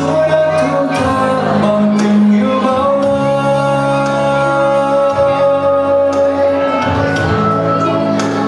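Music: a slow piece with long held notes and chords that change every few seconds.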